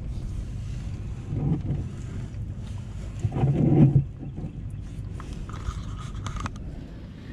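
Diesel fuel draining from the opened drain valve of a 6.7 Cummins fuel filter canister into a catch container, under a steady low rumble of wind on the microphone. It swells louder briefly about three and a half seconds in.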